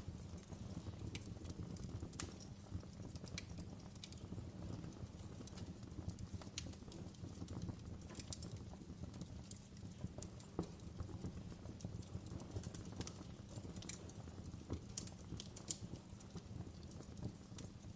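Wood fire burning in a fireplace: irregular sharp crackles and pops over a low, steady rumble of the flames.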